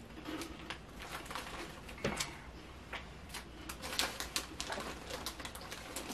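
Handling noise from a plastic snack bag crinkling and comic-book pages being leafed through: a string of small, irregular crackles and rustles, the loudest about two seconds in and again about four seconds in.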